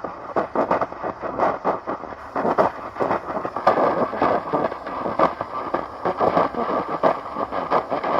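Dense crackling static from a radio receiver, dozens of sharp clicks and pops over a steady hiss.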